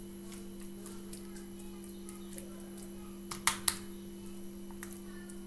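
Borax-and-glue slime being pressed and kneaded by hand, with faint scattered clicks and two sharp pops close together a little past halfway. A steady low hum runs underneath.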